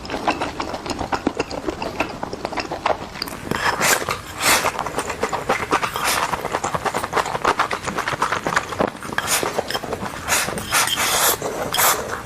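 Close-miked chewing of meat: a dense run of short wet smacks and clicks from the mouth, with louder bites here and there.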